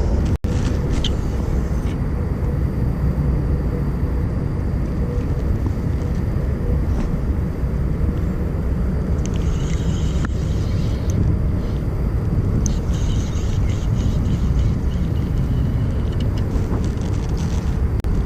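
Steady wind rumble on the microphone out on open water, with faint light crackling at times.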